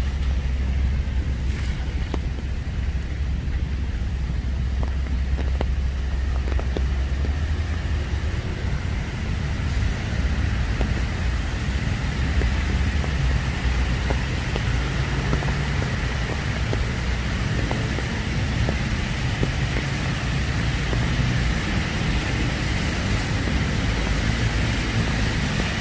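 Steady road traffic on a rain-wet street: the tyre noise of passing cars, with a deep rumble that eases after about seven seconds. Light rain falls on the umbrella overhead.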